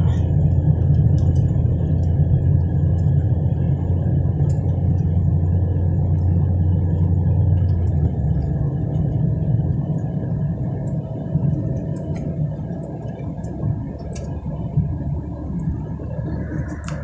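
Car cabin road noise while driving on a paved highway: a steady low rumble from engine and tyres, which eases a little about halfway through.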